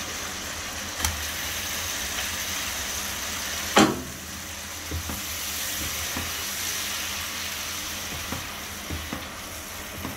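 Butter sizzling as it melts in a hot frying pan, with a wooden spatula pushing it around and knocking against the pan. One sharp, loud knock comes about four seconds in, and a few lighter taps follow.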